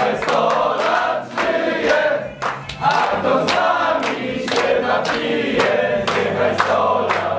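A group of people singing together while clapping in time, about two claps a second.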